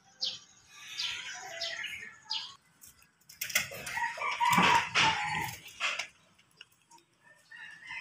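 Small birds chirping in short high notes, then a chicken's loud call for about two and a half seconds midway, then quiet with a few faint chirps near the end.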